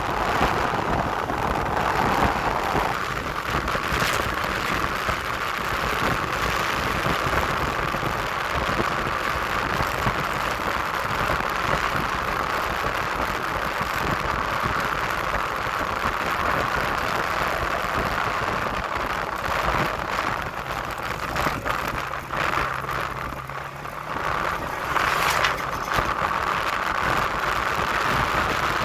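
A motor vehicle running steadily, with continuous engine and road noise and a few brief knocks.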